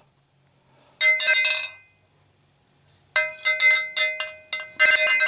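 Zippo lighter's metal case and lid clinked and ringing like a cowbell. One ringing strike comes about a second in, then a run of quick metallic strikes from about three seconds in, becoming rapid continuous clinking near the end.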